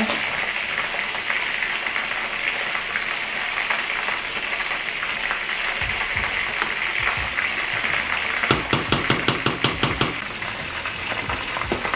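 Chicken pieces frying in a wok of hot oil, a steady sizzle, while a spatula stirs fried rice in a stainless steel pot. About two-thirds of the way in, a quick run of taps as the spatula knocks against the pot.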